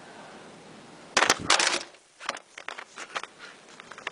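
A burst of loud clattering knocks about a second in, then a scatter of lighter clicks and taps.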